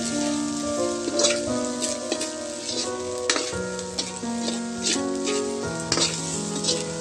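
Rice and chicken frying and sizzling in a metal wok as a metal spatula stirs and tosses it, scraping and clacking against the pan several times. Background music with held notes plays throughout.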